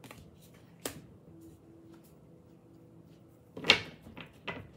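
Tarot cards being pulled from the deck and put down on a table: a light tap about a second in, then a cluster of louder slaps and taps near the end as a card is laid down.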